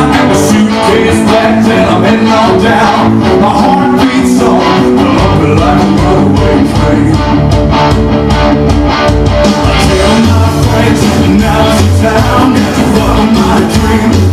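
Recorded music: a guitar tune with a steady beat and no words.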